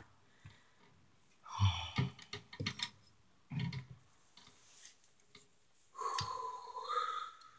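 A few light clicks and taps, between short breathy voice sounds from a man. The last of these is held for about a second and a half near the end.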